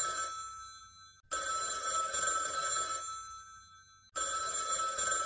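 Telephone bell ringing in repeated rings about three seconds apart: one ring fades out in the first second, then two more start, each sounding for about a second and a half before dying away.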